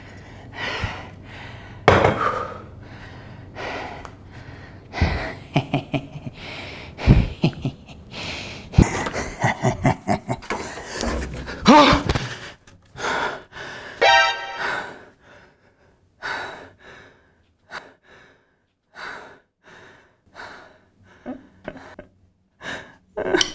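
Sparse background music with a man's gasps and a few thuds.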